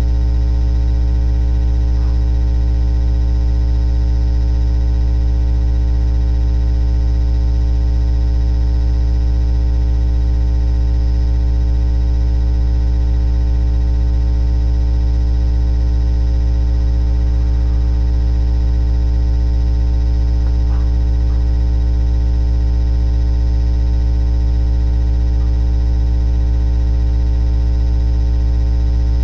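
Loud, steady electrical hum with a buzzy stack of overtones, unchanging throughout: mains hum picked up in the webcam's audio. A couple of faint ticks sit under it.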